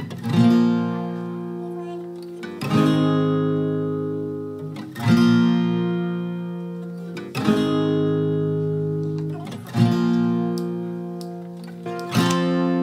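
Background music: acoustic guitar chords strummed slowly, one about every two and a half seconds, each left to ring out and fade before the next.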